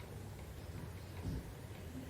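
Muffled television audio heard from across a room between segments: a low, steady rumble that starts abruptly, with a soft faint sound about a second in.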